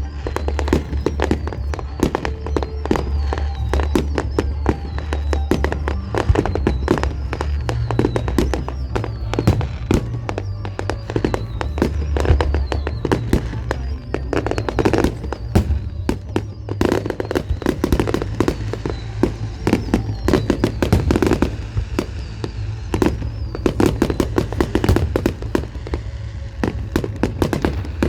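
Fireworks display going off in a dense, unbroken run of rapid bangs and crackling.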